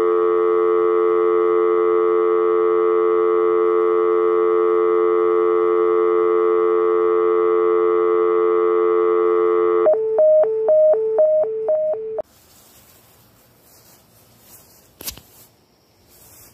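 Electronic telephone-style tone: one steady buzzy note held for about ten seconds, then a quick run of beeps alternating between two pitches for about two seconds, ending abruptly. After it comes faint background noise with a single click.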